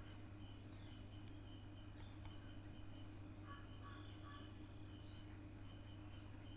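A cricket chirping steadily, a high thin trill pulsing a few times a second, over a low electrical hum.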